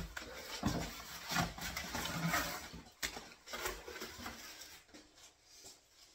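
Handling noise from someone moving close to the microphone: a sharp knock, a few seconds of rustling and scraping, a second knock about three seconds in, then quieter scattered rustles.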